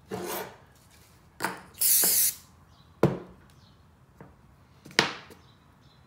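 Small blocks and a metal square handled and set down on a wooden workbench: three sharp knocks about a second and a half apart, with a short loud hiss about two seconds in.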